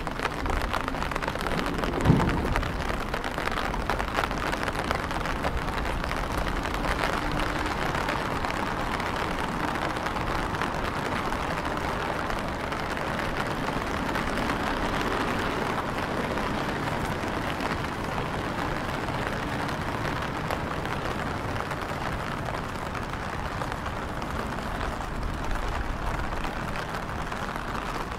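Steady patter of rain falling on wet paving, with one sharp knock about two seconds in.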